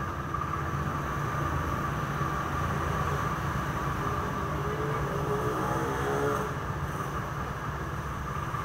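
Steady low background rumble with a faint steady high whine. A fainter pitched hum slides in about four seconds in and fades out about six and a half seconds in.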